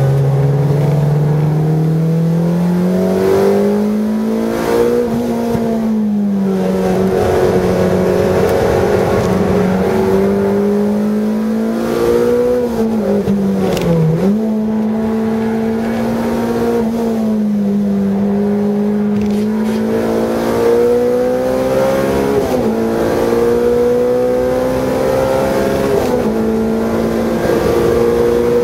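A car engine under hard track driving, heard from inside the cabin, with road and wind noise. Its pitch climbs and falls with throttle and gear changes, with a sharp dip and recovery about halfway through.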